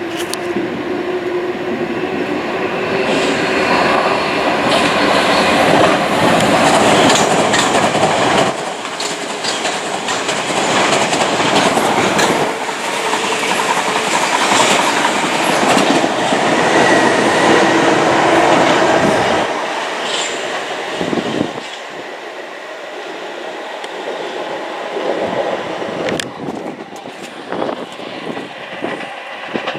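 A train passing close by on the line, loud for about twenty seconds and then fading away.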